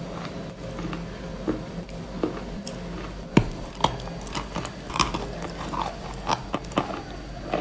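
Close-up chewing and biting of a cookie in cream: irregular crisp crunches and wet mouth clicks, sparse at first and coming thicker in the second half, the sharpest about three and a half seconds in.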